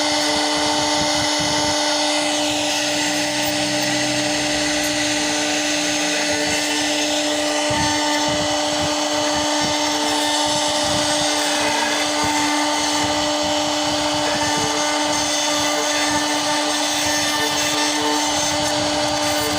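CNC router spindle running at constant speed with a steady whine, carving into the workpiece.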